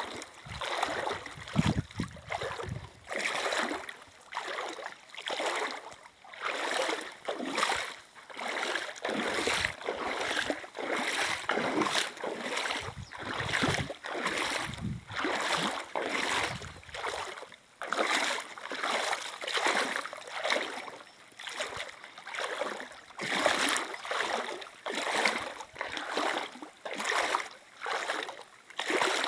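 River water splashing in a steady rhythm, about one splash a second, over the rush of the current.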